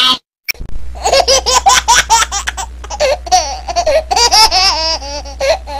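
A person's high-pitched voice laughing over and over in short, breathy ha-ha sounds, with a faint low hum underneath.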